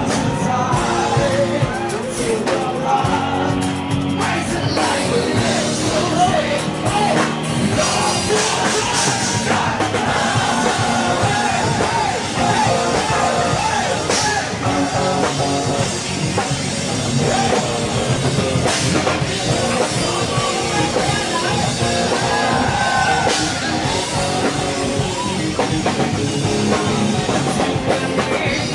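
Live rock band playing: electric guitar and drum kit under a male lead singer on microphone.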